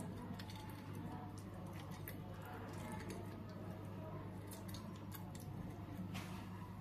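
Boiled spiny gourd being mashed by hand on a ceramic plate: faint soft squishing with scattered light clicks, over a steady low hum.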